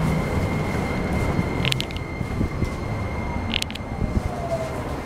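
Keikyu New 1000 series train running, heard from inside the car: a steady low rail and wheel rumble with a couple of brief clicks. About three seconds in, a whine from the Toyo hybrid SiC VVVF inverter falls in pitch, as the train slows toward the next station.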